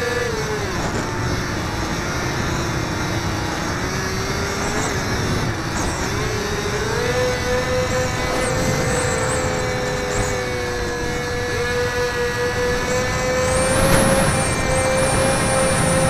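Electric motor and propeller of a HobbyZone Firebird Delta Ray RC plane whining, heard from a camera on the plane, with wind rushing over the microphone. The pitch drops about half a second in, wanders lower, and climbs back to a steady higher note about seven seconds in. A thin high whine joins near the end.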